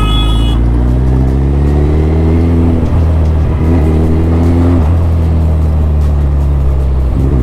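Suzuki Hayabusa's inline-four engine accelerating on the road, its pitch rising through a gear and dropping at upshifts about three and about five seconds in, then running at a steadier speed.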